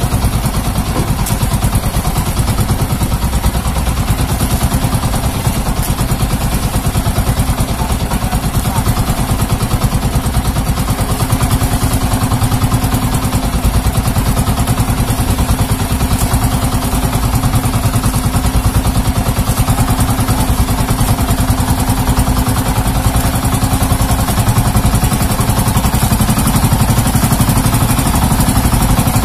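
Motorized outrigger fishing boat's engine running steadily at an even speed while the boat is underway.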